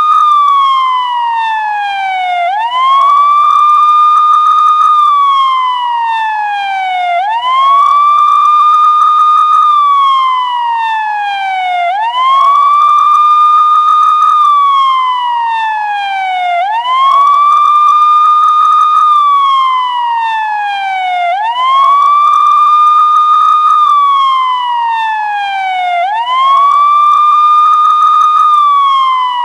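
Police car siren in a slow wail: each cycle rises quickly, holds its high note for about two seconds, then slides steadily back down, repeating about every four and a half seconds, about six times.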